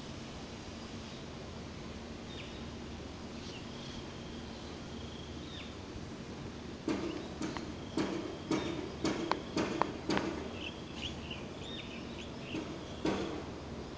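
Outdoor evening ambience: a steady low hum with faint, brief bird chirps now and then. From about seven seconds in comes a cluster of about a dozen sharp clicks and knocks over three seconds, with one more near the end.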